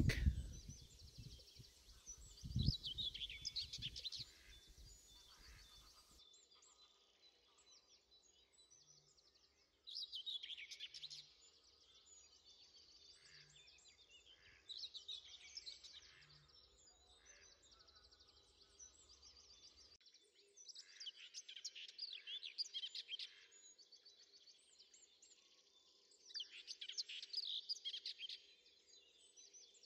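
Faint songbird song: short, high-pitched phrases of one to three seconds, repeated about five times with quiet gaps between.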